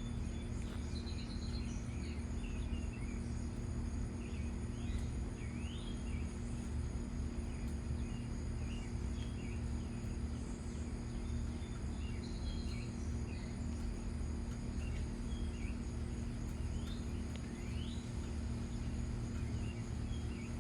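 Outdoor backyard ambience: birds chirping in short, scattered calls over a steady insect trill, with a constant low rumble and hum underneath.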